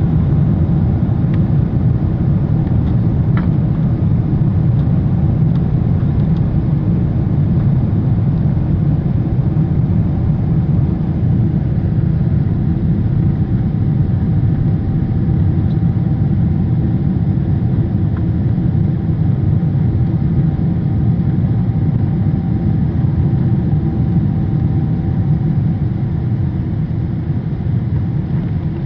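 Airplane engine and airflow noise during takeoff: a loud, steady low rumble with a faint high whine over it.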